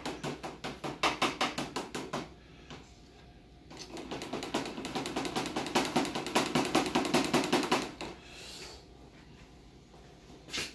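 A utensil stirring sauce briskly in a small plastic container: a rapid run of clicking taps against its sides, in two spells with a pause of about a second and a half between. A single sharp knock near the end.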